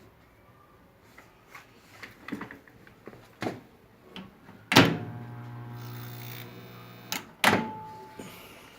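A Whirlpool microwave's door latches shut with a loud click, and the oven starts humming at once on its own for about two seconds. The hum stops with a click, and the door clicks open about half a second later. This is the fault where closing the door switches the oven on as if shorted.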